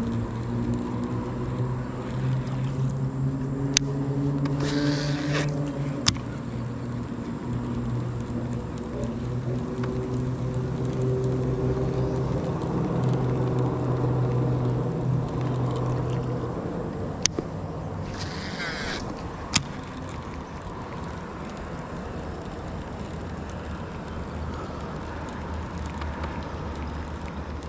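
A motor drones steadily, its pitch drifting slowly up and down, then fades after about 17 seconds. Two short whirring hisses come near 5 and 18 seconds, with a few sharp clicks.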